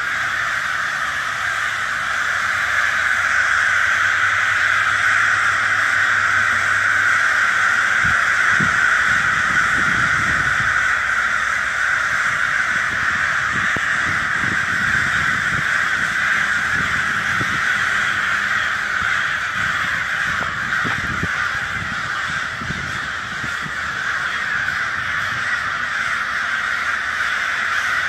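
A huge flock of crows cawing together: a steady din of countless overlapping caws.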